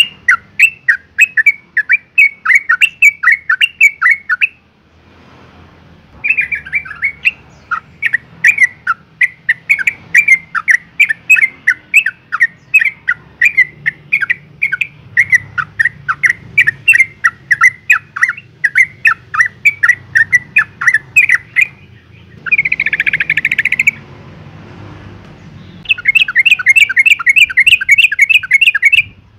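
Yellow-vented bulbul giving long runs of rapid, sharp chattering call notes, about four a second, with a harsh buzzy call about two-thirds of the way through. It is a female's call to a male in breeding season, the kind used to lure bulbuls into calling.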